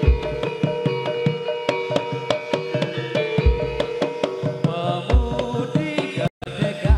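Live Topeng Ireng troupe music: drums beating a quick rhythm with a deep bass drum hit every second or two, under steady held melodic tones. The sound drops out for an instant about six seconds in.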